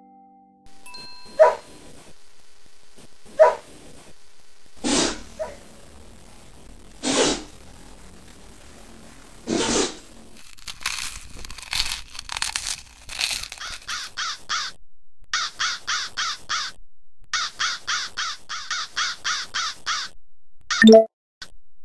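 Comic animal sound effects for hand puppets. Two short pitched calls and three noisy rasps come in the first ten seconds, then a long run of quick chirps, about six a second, broken by short gaps. A loud honk near the end is the loudest sound.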